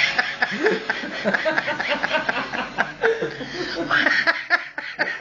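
People laughing, chuckling in short, quick bursts.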